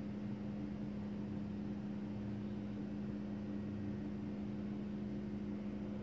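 A steady low hum with a faint hiss, even and unchanging throughout.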